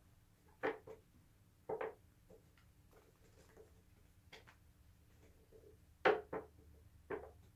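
A deck of cards being shuffled by hand: short, sharp rustling bursts of the cards, a few at the start and a few more near the end, with a quiet stretch between.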